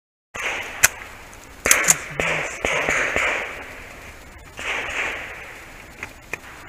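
Outdoor rustling and movement noise, with several sharp cracks: a loud one about a second in, two close together near two seconds in, and a few lighter ticks later.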